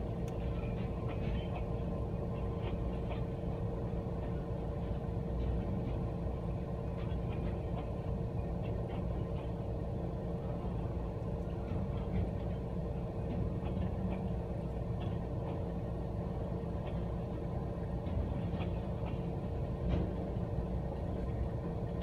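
Freight train of lumber-loaded centerbeam flatcars rolling past at a grade crossing, heard from inside a car: a steady, even rumble with scattered faint clicks and squeaks.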